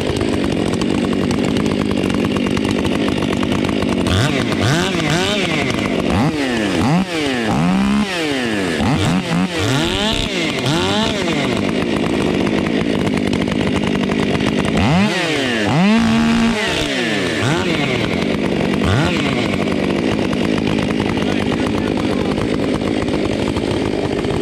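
Two Stihl chainsaws with aftermarket mufflers, an MS 500i with a Barkbox exhaust and an MS 462 with a Buckshot exhaust, running at idle. From about four seconds in they are revved up and down over and over, the pitch sweeping up and dropping back, then they settle back to a steady idle for the last few seconds.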